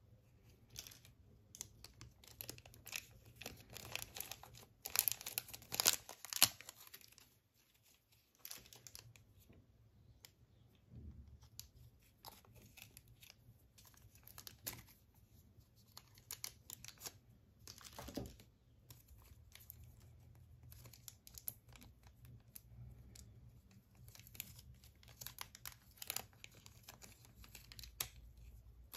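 Crinkling and rustling of thin clear plastic blister packaging as a Nendoroid figure and its parts are handled, with scattered small clicks of plastic pieces. The loudest burst of crinkling comes about five to six seconds in.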